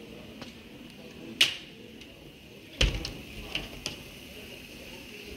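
A few sharp clicks, then one louder dull thump about three seconds in, over a faint steady high-pitched tone of outdoor background.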